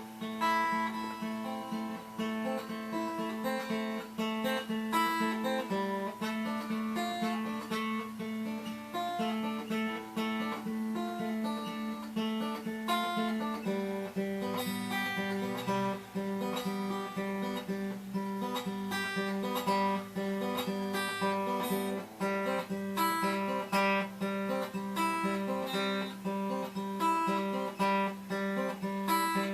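Instrumental passage of a song with no singing: acoustic guitar strummed in a steady rhythm over a held low note.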